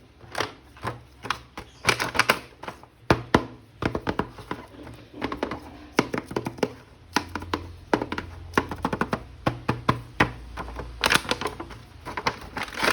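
Hands unpacking and handling a plastic toy action figure and its packaging: a busy, irregular run of sharp clicks, taps and short rustles.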